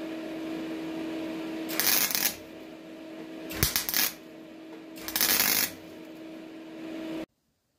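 MIG wire-feed welder laying three short tack welds on car body steel, each a crackling burst of about half a second, with the machine's steady hum between them. The sound cuts off suddenly near the end.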